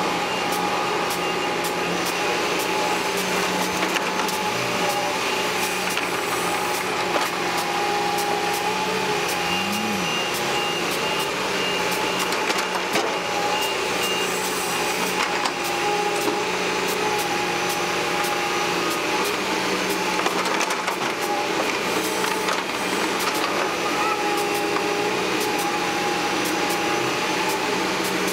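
Caterpillar tracked excavator's diesel engine and hydraulics running steadily under load while it digs soil and swings to dump it into a tipper truck, with a humming tone that steps up and down in pitch. Scattered knocks and clatter of soil and stones falling into the truck's steel bed.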